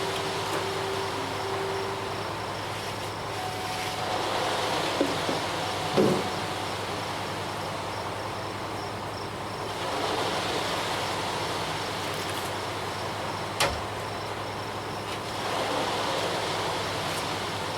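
Concrete mixer truck's diesel engine running steadily, with a few short knocks about a third of the way in and again near three-quarters.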